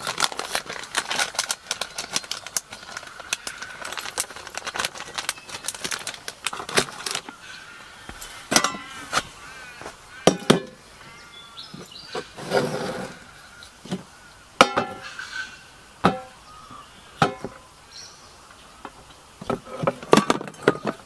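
Kitchen utensils on a wooden cutting board and an enamel camp plate: a knife tapping and scraping on the board, and the plate and cutlery clinking while a sandwich is cut and plated. The sharp clicks and knocks come thickly for the first several seconds, then more sparsely.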